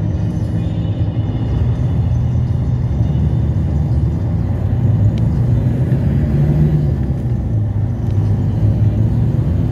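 Steady low engine and road rumble heard from inside a moving vehicle.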